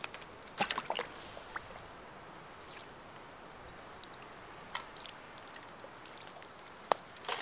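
Quiet handling sounds at an ice-fishing hole: a few light crunches and clicks as a wooden tip-up is lifted out of the hole and the line is handled, with one sharper click near the end.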